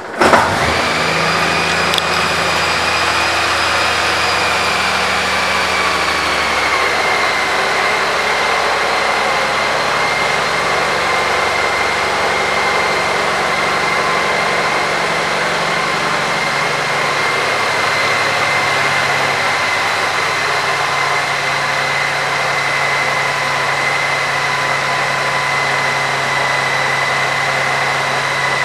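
2018 Honda Gold Wing Tour's 1833 cc flat-six engine starting and then idling steadily, with a high whine running over the idle. The idle settles to a slightly lower pitch about seven seconds in.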